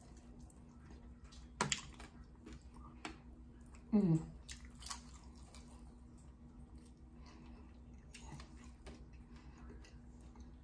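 Close-up mouth sounds of a person eating fried fish: soft chewing, lip smacks and small wet clicks. There is a sharp click about one and a half seconds in, and a short hummed 'mm' falling in pitch about four seconds in.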